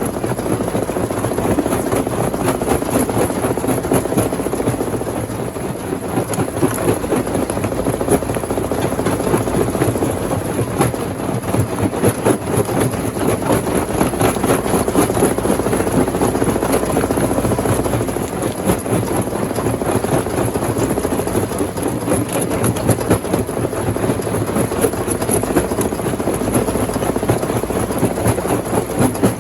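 Rock crusher running, with a steady heavy mechanical noise and a continuous rapid clatter of stones being broken.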